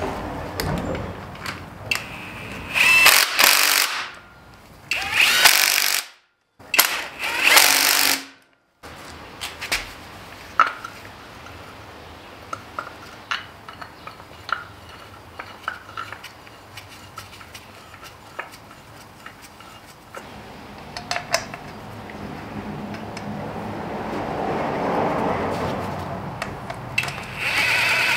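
A cordless power tool runs in short bursts on bolts, three times in the first few seconds and again near the end, with scattered clinks of tools and hardware in between.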